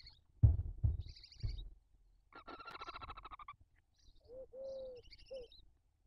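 Barn owl chicks giving short, raspy, pulsed begging calls, with one longer rasping call in the middle. Three loud thumps come in the first second and a half as the adult owl moves in the nest box. Three short, low, cooing notes follow near the end.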